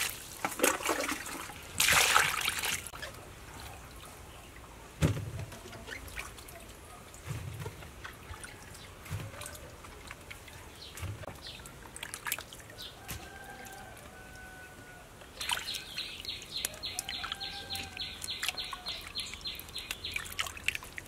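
Hands swishing and splashing fruit in a plastic basin of water, with trickling as water runs off. The splashes are loudest near the start, and birds call faintly in the second half.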